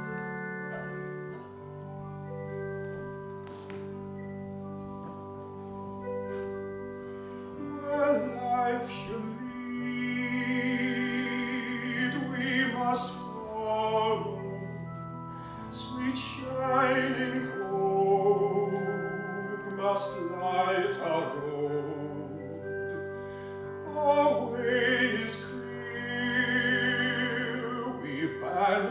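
Solo operatic singing with strong vibrato over sustained keyboard chords. The keyboard holds chords alone at first, and the voice comes in about eight seconds in, singing in phrases.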